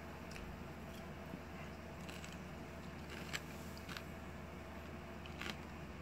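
Quiet room tone: a steady low hum with a few faint, scattered clicks, the sharpest about three seconds in.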